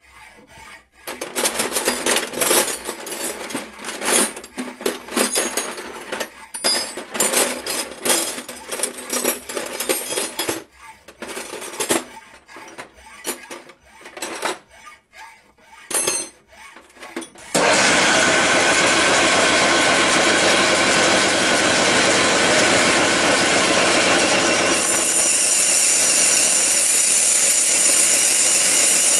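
Power-tool cutting noise, coming in irregular bursts with short gaps at first, then switching suddenly about two thirds of the way in to a loud, steady, unbroken run that shifts slightly in tone near the end.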